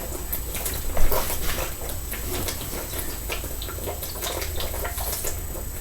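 A person chugging carbonated soda from a bottle: irregular wet gulps and swallowing clicks with liquid sloshing, one louder gulp about a second in.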